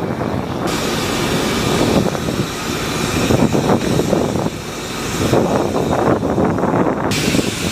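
Steady loud rumbling roar with a rushing edge. Its sound changes abruptly a little under a second in and again near the end.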